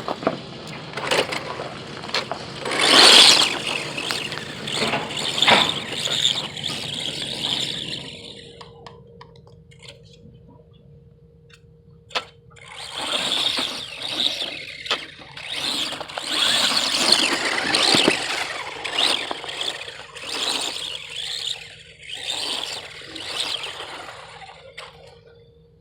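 Redcat Volcano electric RC truck driving in two long spells, its motor whining and its tyres scrabbling over the ground, with a quieter gap and a single sharp knock between them.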